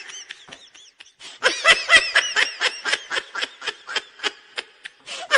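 High-pitched laughter: a fast run of short laughs at about five a second, starting about a second and a half in and tailing off near the end.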